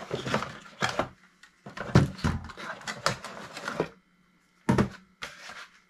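A cardboard box, its packing insert and a plastic fan unit being handled as the kit is unpacked: irregular scrapes, rustles and knocks, with a brief pause about four seconds in.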